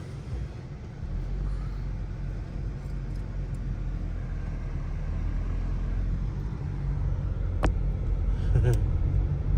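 Steady low rumble of a car driving, growing a little louder about a second in, with a sharp click a little before the end.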